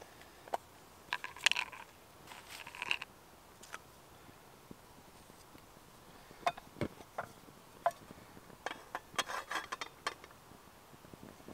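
Light metallic clinks, taps and scrapes of camp-stove cookware being handled, in scattered bursts about a second in and again from about six to ten seconds in.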